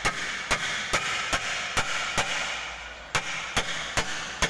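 Sharp metallic knocks, about two a second with one short pause past the middle, each ringing briefly: hammer strikes on steel as the crossmember and engine mounting are knocked back into place.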